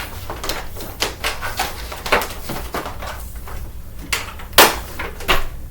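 Irregular clicks and knocks of a vacuum cleaner's plastic parts being handled, with the loudest knock about three-quarters of the way through. No motor is running.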